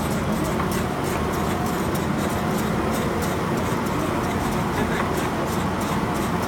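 Automatic spray-painting machine for cabinet doors running: a steady mechanical drone with a fast, regular ticking over it.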